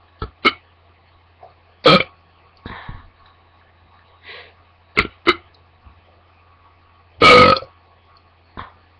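A young woman burping deliberately, again and again: several short burps, then one longer, louder burp about seven seconds in.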